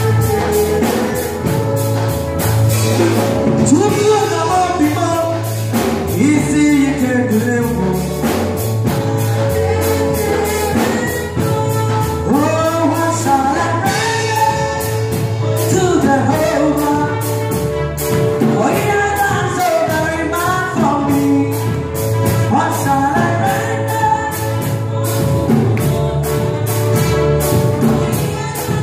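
Gospel music: a singing voice over instruments and a steady beat.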